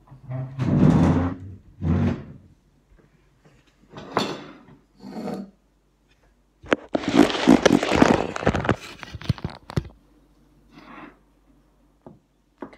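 Wooden chair being pulled out, scraped and knocked against the floor and table as someone sits down, in several separate bursts, the longest and loudest from about seven to ten seconds in.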